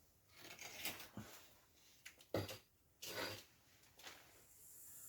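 Faint, intermittent handling sounds of bricklaying: bricks and a spirit level shifted and set on clay mortar, with a few short knocks and scrapes. A steady faint hiss comes in near the end.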